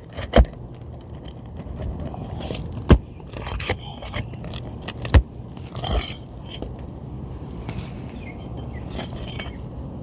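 Metal roof snake scraping and clinking under an asphalt shingle as it is worked against a stubborn roofing nail that is not yet all the way out, with several sharp knocks as the tool strikes.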